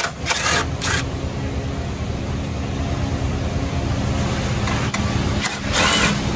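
Cordless drill-driver running in short bursts on 10 mm bolts: two brief runs near the start and a longer one with a shifting whine about six seconds in, over a steady low rumble.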